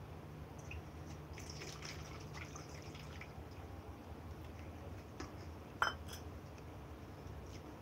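Curry pouring and dripping from a small stainless steel bowl onto rice in a steel plate, with small wet clicks and trickles. A single sharp clink of steel comes about six seconds in.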